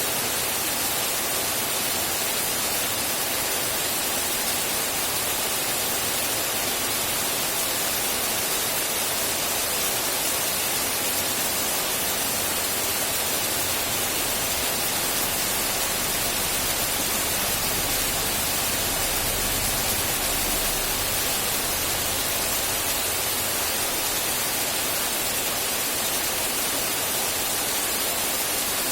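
Steady rain falling, heard as a constant, even hiss with no separate drops standing out.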